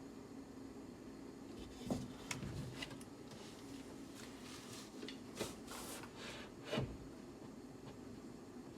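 Scattered clicks and knocks of tools and parts being handled while working on a car door: a few sharp knocks about two seconds in, more around five to seven seconds, the loudest just before the end, over a steady low hum.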